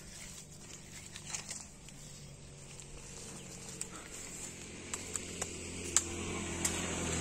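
A motor vehicle approaching along the road, its low engine hum growing steadily louder toward the end. A few light clicks and taps sound close by.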